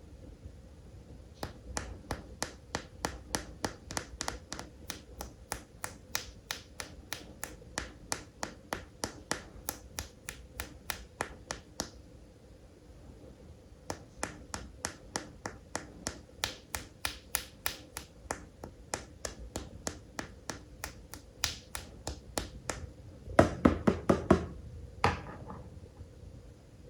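Fingernails tapping on hard plastic animal toy figures, about four taps a second in two long runs with a short pause between. A cluster of louder knocks and handling comes near the end.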